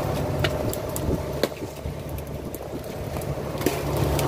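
Fishing boat's engine running steadily, with a few sharp clicks and knocks of handling on deck.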